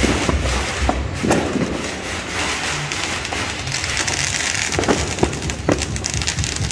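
Fireworks and firecrackers going off all around: a dense, continuous crackling din with sharper bangs standing out about a second in and several times around five seconds in.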